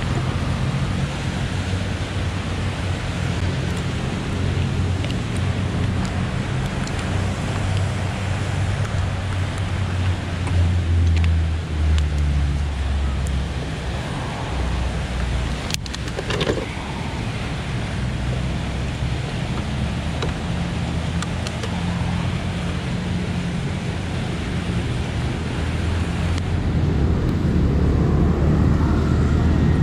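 Automatic scooter's engine running on the move, its pitch rising and falling with the throttle, under wind and road noise. A single sharp click about halfway through, and the engine grows louder over the last few seconds.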